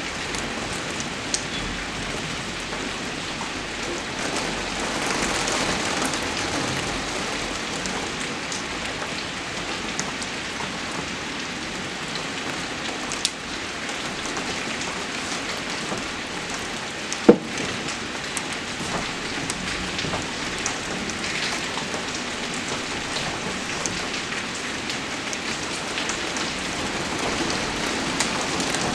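Steady rain falling on a surface, with many small scattered drip ticks and one sharper, louder tap about two-thirds of the way through.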